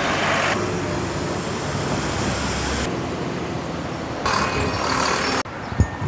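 City bus running as it pulls in at the stop, its engine rumbling, with two bursts of air hiss, one at the start and one about four seconds in. The sound drops suddenly near the end, followed by a short knock.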